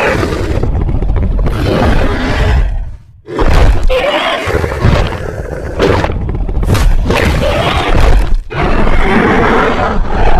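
Edited dinosaur roar and growl sound effects, loud and rough, cut together in several abrupt segments, with a few sharp impact hits in the middle.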